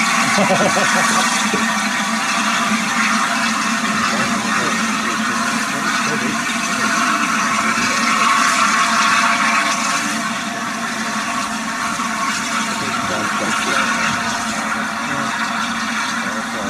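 Steady loud hiss of steam escaping from LNER Peppercorn A1 steam locomotive 60163 Tornado, without any beat of exhaust, easing a little about ten seconds in.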